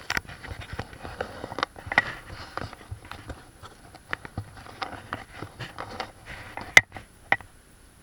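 Footsteps crunching and scuffing on loose gravel and scree, an irregular run of crackles and small clicks, with two sharp clicks near the end before the sound dies down.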